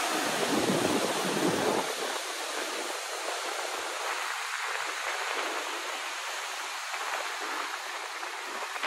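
Ocean swell surging against coastal rocks: a heavier, deeper rush in the first two seconds, then a steady wash of surf.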